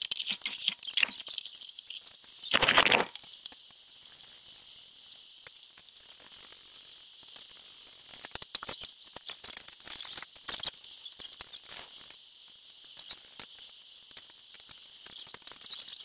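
Hand tools working on an ATV's rear rack and bodywork: scattered light clicks and clinks of wrenches and bolts on metal, with a louder rattle about three seconds in.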